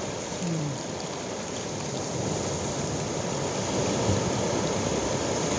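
Sea waves breaking and washing along the shore, a steady rushing surf that swells a little about halfway through.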